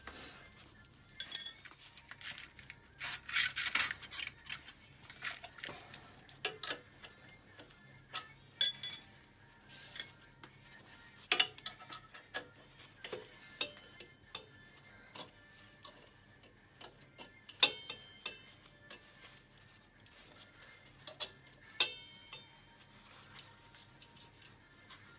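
Steel combination spanner clinking on bolts at an ATV's rear axle carrier while they are tightened: scattered clicks and knocks, a few of them ringing briefly, the loudest about a second in.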